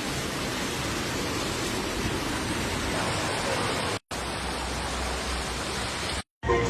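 Steady rushing water noise of heavy rain, with no tone or rhythm in it. It is broken by two brief cuts, about four seconds and six seconds in.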